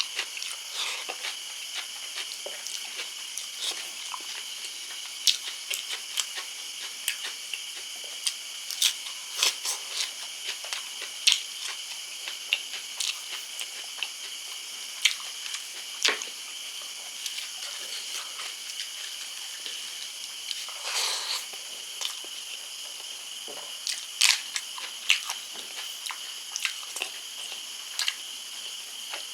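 Close-up eating sounds: a person chewing and smacking through a spicy fish curry, with many short wet clicks and smacks scattered through, over a steady high hiss.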